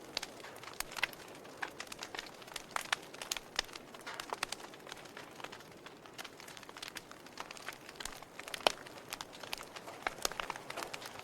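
Logs burning in a fireplace, crackling with irregular sharp pops over a soft hiss; one pop, a little before the last quarter, is louder than the rest.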